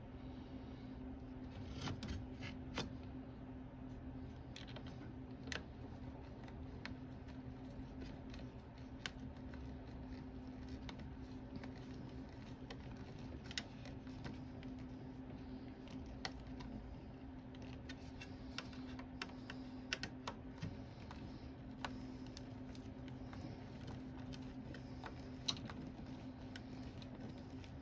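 Irregular small clicks and taps of hands handling aluminum window parts and small screws, over a steady low hum.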